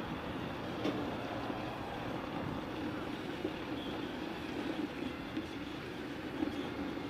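Mercedes-Benz Arocs concrete mixer truck's diesel engine running steadily.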